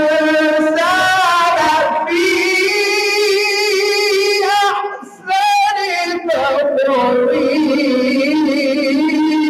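A man recites the Quran in melodic tajweed style, holding long notes with wavering, ornamented pitch, and pauses briefly for breath about five seconds in.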